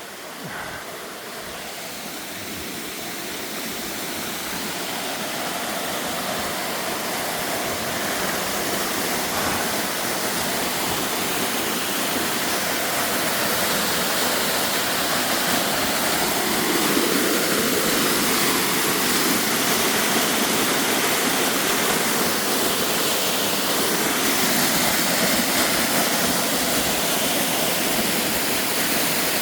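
Waterfall rushing, with the stream water beneath it. It is a steady wash of noise that grows louder over the first several seconds as the fall is approached, then holds level.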